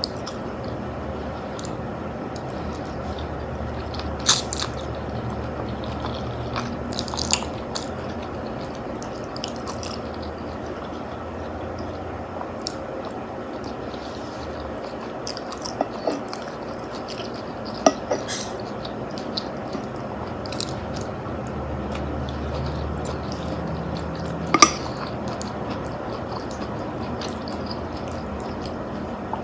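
Eating sounds: chewing of spaghetti and meatballs over a steady background hiss, broken by a few sharp clicks, about four of them loud.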